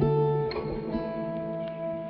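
Background music: plucked guitar notes that ring on, a new note picked about half a second in and another about a second in.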